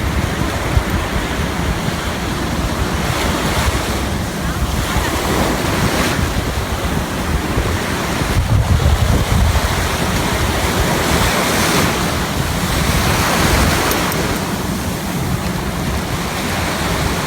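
Ocean surf breaking and washing up the beach in repeated swells every few seconds, with wind buffeting the microphone in a steady low rumble.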